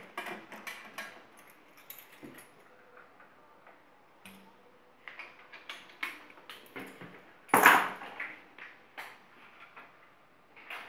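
Stainless-steel sanitary clamp fittings and a hose being handled as they are taken off a filling machine: a series of metal clicks and clinks, with one louder clatter about seven and a half seconds in.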